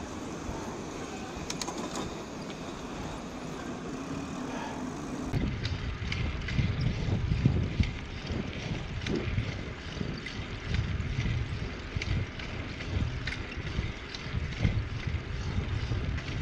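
Mountain bike rattling as it is pedalled: repeated irregular clicks and knocks from the bike over road and wind noise, from about five seconds in. It is the sign of a mechanical fault that the rider says is getting louder and louder.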